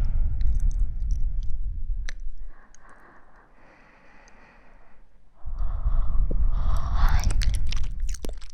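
Breath blown at close range onto a binaural microphone in two long puffs, each about two and a half seconds, with a deep wind rumble on the mic; a few sharp mouth clicks come near the end.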